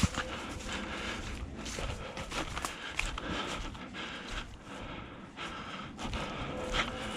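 A person's heavy breathing, with irregular scuffs and rustling throughout.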